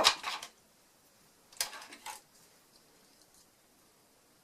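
Small objects handled on a desk: a short clatter of clicks and knocks right at the start, another about a second and a half in, then quiet.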